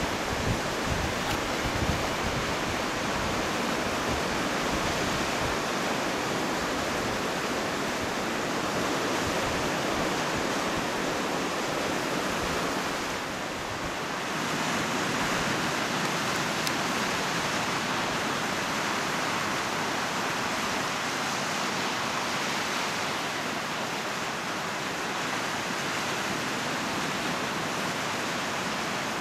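Sea surf breaking and washing over a boulder beach, a steady hiss, with wind buffeting the microphone in the first few seconds. It dips briefly about halfway through.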